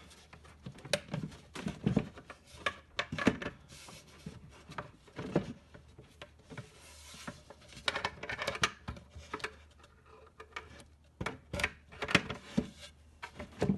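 Scattered clicks, knocks and rubbing from a plywood door panel being handled while its concealed cabinet hinge is pushed onto its mounting plate.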